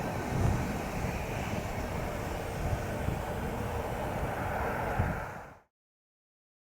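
Airliner engine noise with wind buffeting the microphone; the sound cuts off abruptly about five and a half seconds in.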